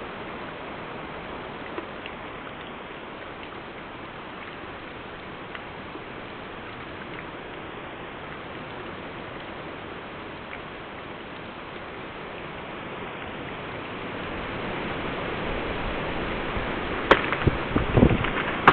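High wind rushing through evergreen trees, gusting stronger in the last few seconds, with a sharp crack and a few knocks near the end.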